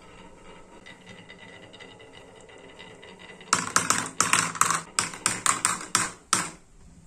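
Marbles rolling softly down the grooves of a wooden marble-run track, then a quick string of about a dozen sharp clacks from about halfway in as they drop one after another into the yellow plastic bed of a toy dump truck.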